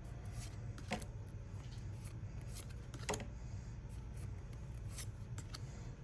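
Pokémon trading cards being handled, sliding one past another as a booster pack is flipped through: faint rustles and soft clicks, two a little louder about a second in and about three seconds in, over a steady low hum.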